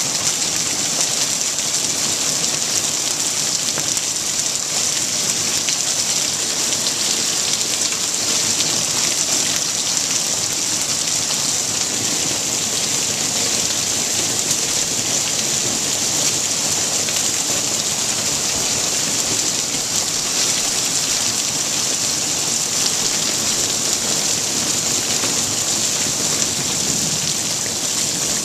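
Hail and rain falling steadily on a concrete patio and the surface of a swimming pool: a dense, even hiss of countless small hits that never lets up.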